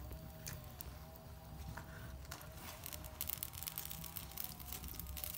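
Wood cooking fire crackling faintly as the firewood catches, with scattered sharp pops that come thicker in the second half, over a low steady rumble.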